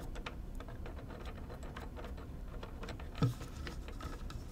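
Metal wing nuts being turned off threaded studs by hand on a plywood crate lid: a run of faint clicks and scraping ticks, with one louder knock about three seconds in.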